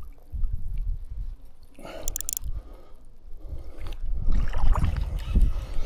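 Water sloshing and splashing around the legs of someone wading through shallow water, with an uneven low rumble of wind on the microphone. There is a brief crisp burst about two seconds in, and the splashing gets busier near the end.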